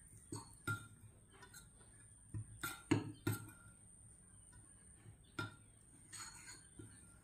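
A spoon and fingers mixing a moist ground-leaf paste in a glass bowl: scattered light clinks and knocks against the glass, several close together around three seconds in, with a soft scrape near the end.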